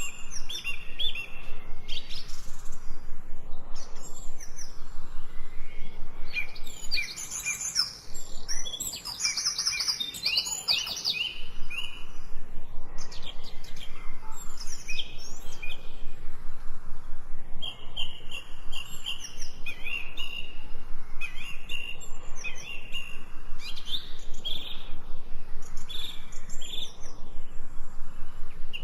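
Songbirds singing: a dense run of quick, high chirps and trills, repeating with hardly a pause.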